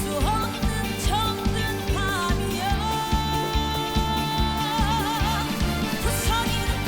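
Trot song band music with a steady drum beat under a lead melody. About three seconds in, the lead holds one long note that goes into a wavering vibrato.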